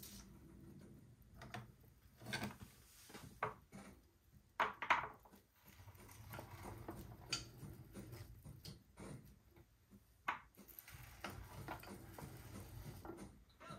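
Scattered light knocks and clicks of small objects being handled, over a low hum; the loudest cluster comes about five seconds in, with another sharp knock about ten seconds in.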